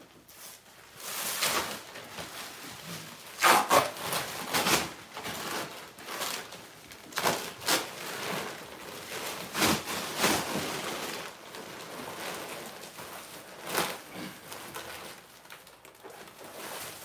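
Plastic sheeting rustling and crinkling as it is handled, in irregular bursts.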